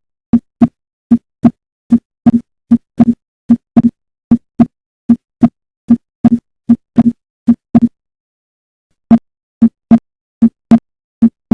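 Heart sounds at the pulmonary focus: short, low lub-dub pairs (S1 and S2), about 75 beats a minute, with one pause of about a second near the end.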